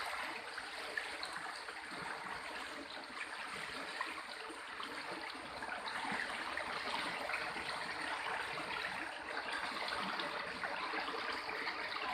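Floodwater flowing steadily with a fine trickling, getting a little louder in the second half.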